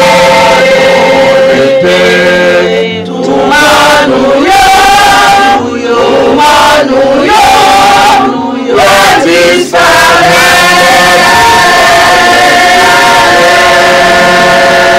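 Women's church choir singing into microphones in short phrases with brief breaks between them, then holding one long chord from about ten seconds in.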